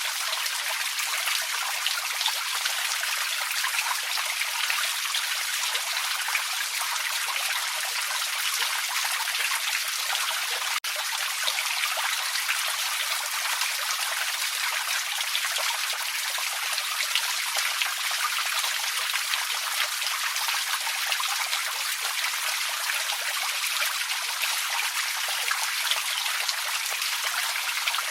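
Small forest creek running and trickling steadily, an even, bright rush of water with a split-second dropout about eleven seconds in.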